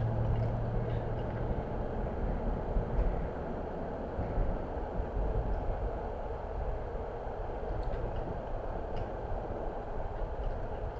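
A car driving on a dirt road: a steady rumble of tyres and engine.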